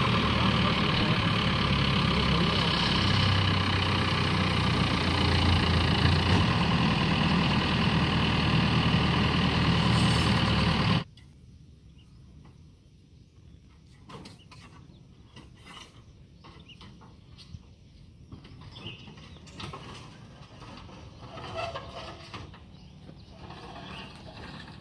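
An engine runs steadily for about eleven seconds, then cuts off abruptly. After that only faint, scattered clicks and knocks remain.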